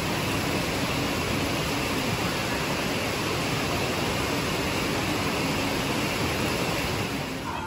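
Rain pouring down steadily, an even rush of noise with no separate drops or knocks standing out.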